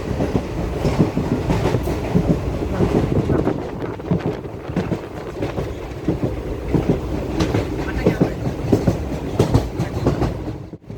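Passenger train running along the track, a steady rumble with the wheels clattering irregularly over the rails; the sound breaks off for an instant near the end.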